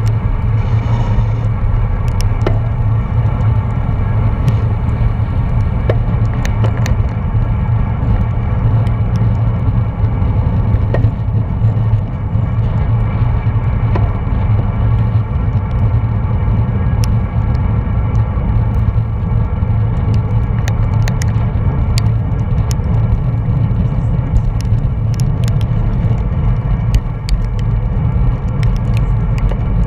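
Steady low rumble of wind and road noise on a bicycle-mounted camera's microphone while riding at speed in a pack of road cyclists, with scattered faint clicks.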